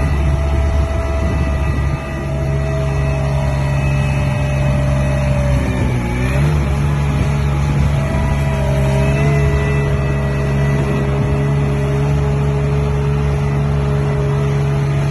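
Mini track loader's 25 hp Perkins diesel engine running steadily, its pitch dipping briefly about six seconds in and then coming back up.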